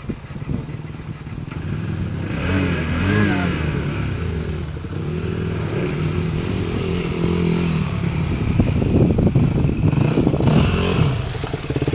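Dirt bike engines revving up and down as the bikes ride through a muddy puddle on an off-road trail. The engine note gets louder as one bike comes past close by, about nine to eleven seconds in.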